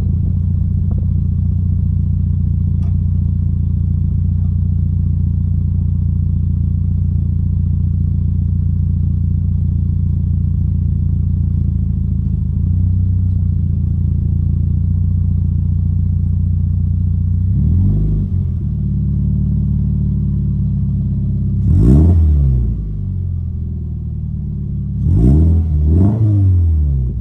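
Toyota GT86's flat-four engine through a Megan Racing aftermarket exhaust, idling steadily at a deep drone, then blipped: one short rev, a bigger rev about 22 seconds in, and two quick revs near the end. The idle sits lower after the big rev.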